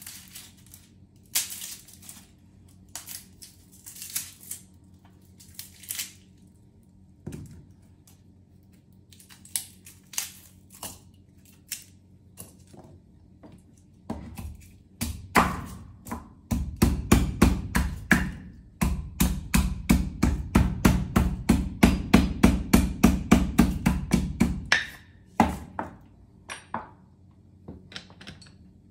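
Kitchen knife chopping on a cutting board: a fast, even run of strokes, about four a second, lasting some eight seconds past the middle. Scattered single taps and clicks of knife and ingredients being handled come before and after.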